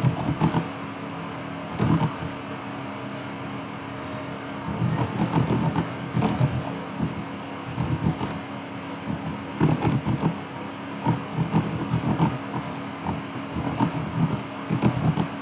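Computer keyboard being typed on: irregular runs of keystroke clicks over a steady low hum.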